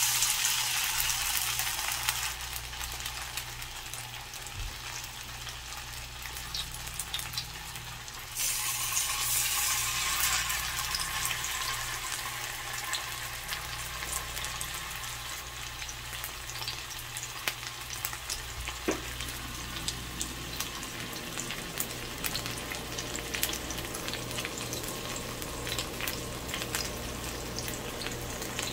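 Marinated catfish steaks shallow-frying in a little hot oil in a pan: a steady sizzle with small pops and crackles, louder from about eight seconds in. A steady low hum runs underneath.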